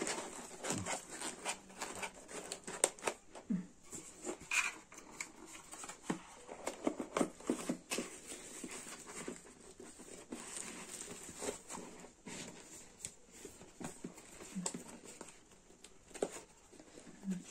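Cardboard smartphone box being handled and closed, with plastic wrapping crinkling: a run of irregular light clicks, taps and rustles.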